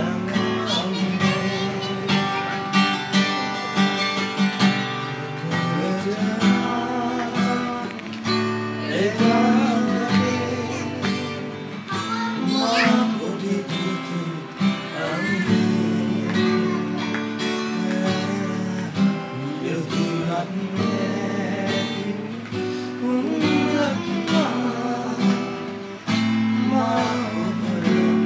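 Acoustic guitar strummed in steady chords, with a man singing a song along with it.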